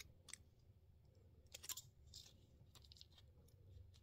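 Near silence broken by a few faint, short clicks of thin sheet tin and pliers being handled.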